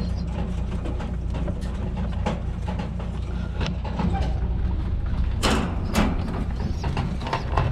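Two sharp metallic clicks about five and a half and six seconds in, as the bent-wire latch of a wire pigeon cage door is worked by hand. Lighter wire rattles and a steady low hum run underneath.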